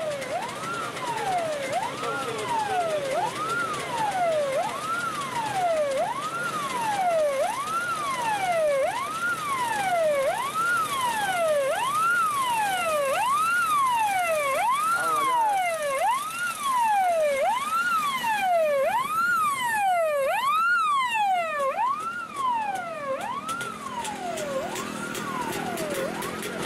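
Siren of a vintage Lada police car, wailing steadily up and down in pitch about once every second and a quarter, fading near the end.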